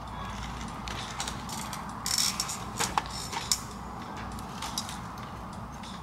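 A few sharp clicks and knocks with a brief rustle, about two to three and a half seconds in, over a steady low hum.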